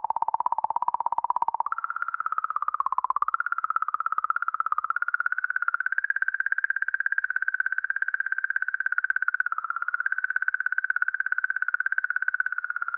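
Sonified recording of a comet's magnetic-field oscillations, the 'singing comet' 67P/Churyumov–Gerasimenko, made audible by scientists: a fast-pulsing, warbling tone that steps up in pitch twice in the first few seconds, then holds steady and cuts off just after the end.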